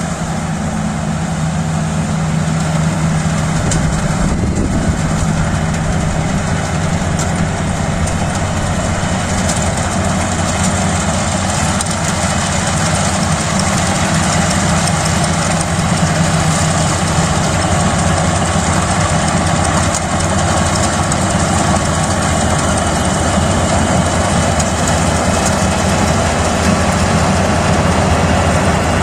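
Kubota DC-35 combine harvester's diesel engine running steadily with its machinery working, a loud, even mechanical drone with a constant low hum.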